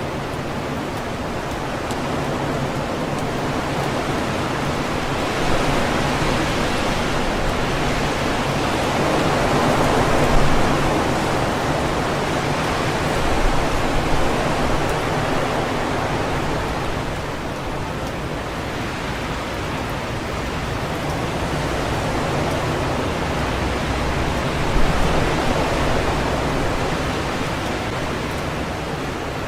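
Strong wind rushing through tree leaves, the rustling noise swelling and easing in slow gusts, strongest about a third of the way in and again near the end.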